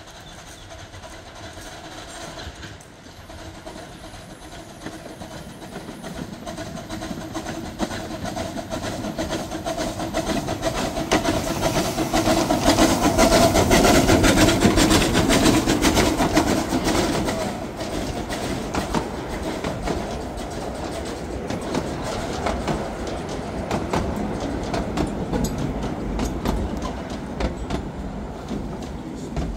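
A 15-inch gauge steam train approaches and passes close by, loudest as the locomotive goes past about halfway through. Its carriages then roll by with steady clicking of wheels over the rail joints.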